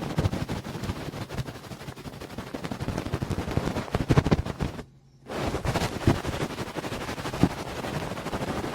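Close-miked ASMR ear sounds: rapid wet crackling and clicking right at the microphone, as from licking or cleaning the ear, with a brief pause about five seconds in.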